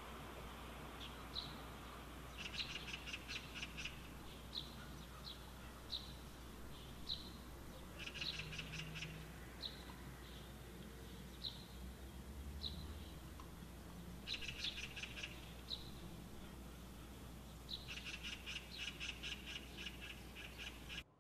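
Small birds chirping: short high chirps about once a second, with four stretches of rapid trilling.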